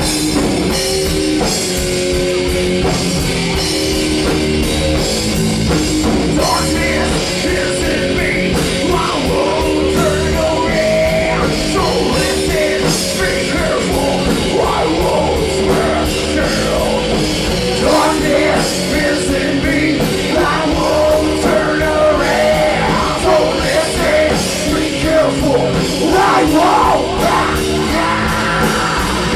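Live heavy rock band playing loud: electric guitars, bass and drum kit, with a singer screaming and yelling over them.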